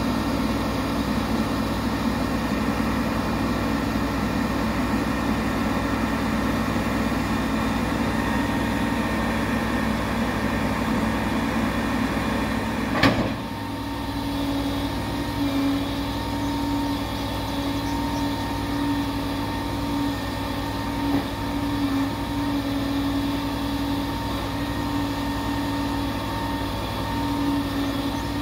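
Heavy truck engine running steadily while a grapple truck handles bridge timbers, with a single sharp click about halfway through, after which a steady hum joins the engine sound.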